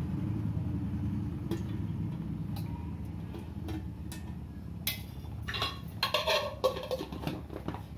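A spoon tapping and scraping against a metal cooking pot as spoonfuls of ghee are added, with scattered clinks at first and a busier run of clatter in the last few seconds, over a steady low hum.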